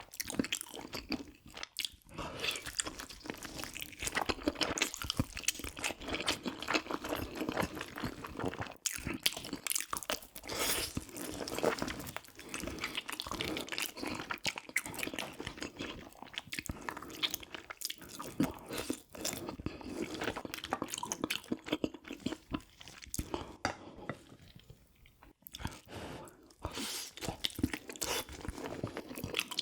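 A person eating soy-braised pig's trotters (jokbal) and kimchi close to the microphone: a long run of wet bites and chews, with a short lull about 24 seconds in.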